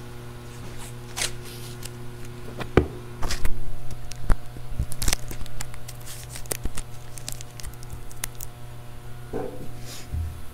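Close handling noise of a clip-on lavalier microphone being taped to a wrench: irregular rustling, scraping and sharp clicks over a steady low electrical hum, with a dull thud near the end.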